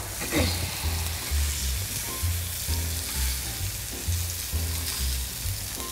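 Food sizzling in a hot sauté pan: a steady frying hiss. Underneath it runs a low, pulsing beat of background music, about two pulses a second.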